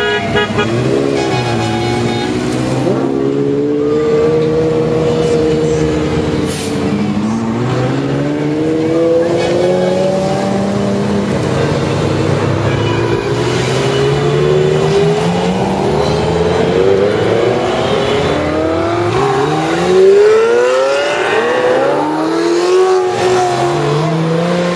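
Ferrari sports cars, among them a 360 Spider and a 458 Italia, driving past one after another with their V8 engines revving up, the pitch climbing and dropping back at each gear change. The loudest pass comes about twenty seconds in.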